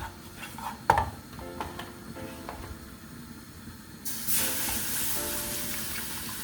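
Milk poured into a hot butter-and-flour roux in a pan for white sauce, setting off a sudden hiss and sizzle about four seconds in that keeps going. A couple of sharp knocks come in the first second.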